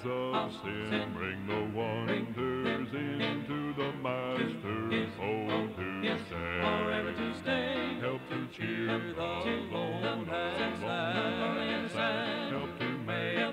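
Country-gospel hymn singing with guitar-style accompaniment, played back from a 1983 cassette tape. The voices sing continuously with vibrato over steady instrumental notes, and the sound has little top end.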